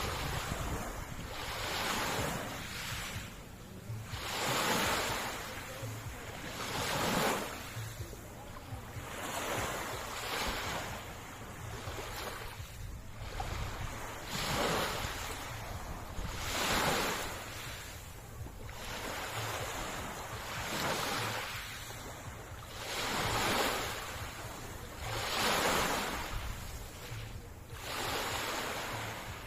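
Sea waves washing onto the shore, a swell of surf hiss rising and falling about every two seconds, over a steady low rumble of wind on the microphone.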